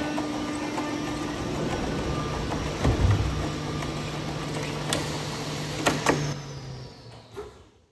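Electric drive motors of a 1:6 scale all-metal M26 Pershing model tank running steadily under the clatter of its metal tracks, with a heavy thump about three seconds in as the tank comes down off a wooden pallet onto concrete. A few sharp metal clanks follow near the end before the sound fades out.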